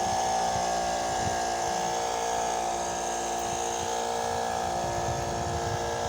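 Boat engine running steadily with an even droning whine.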